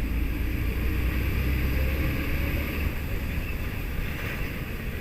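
A vehicle's steady low rumble, with a faint rising whine about two seconds in.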